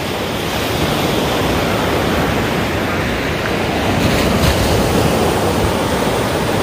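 Ocean surf washing onto a sandy beach as a continuous rushing noise, with wind buffeting the microphone.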